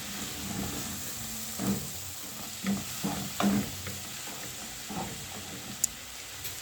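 Minced-meat and vegetable mixture sizzling in a frying pan while being stirred, with several short scraping strokes against the pan and one sharp tap near the end.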